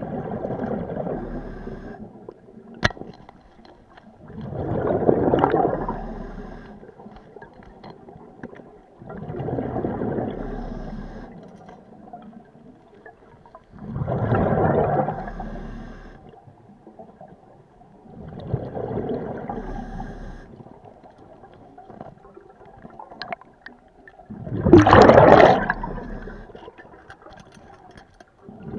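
A scuba diver breathing through a regulator, heard underwater: gurgling bursts of exhaled bubbles lasting a second or two, about every five seconds, with quieter stretches between. There is a single sharp click about three seconds in.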